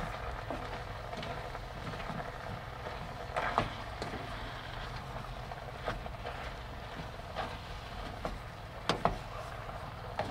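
A spoon stirring marrow, onion and flour in a saucepan, with a few scrapes and sharp knocks against the pan at intervals, over a steady hiss.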